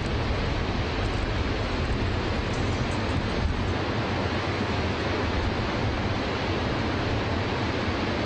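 Niagara Falls: a great mass of water pouring over the brink, a steady deep rushing noise without a break.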